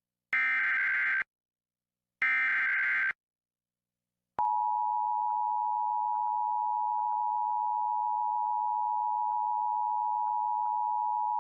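Emergency Alert System tones: the last two of the three SAME digital header bursts, each a buzzy data squeal about a second long, encoding a Fire Warning. About four seconds in, after a short silence, the steady two-tone EAS attention signal begins.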